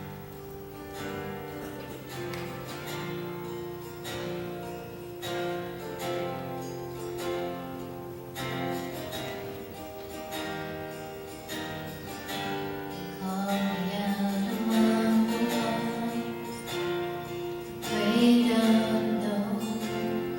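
Acoustic guitar strumming the introduction to a worship song, getting louder about two-thirds of the way through and again near the end.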